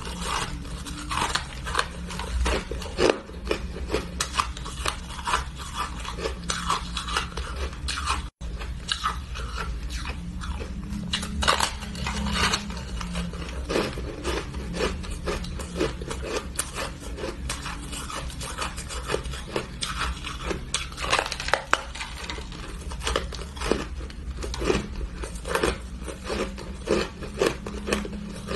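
Close-up crunching of a frost-covered block of ice being bitten and chewed: dense, irregular cracks and crackles. The sound cuts out for an instant about eight seconds in.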